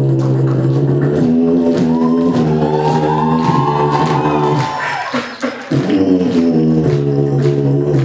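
Beatboxing: a steady hummed bass note with a higher voiced line gliding up and back down over it. The sound breaks off briefly about five and a half seconds in, then the hum returns.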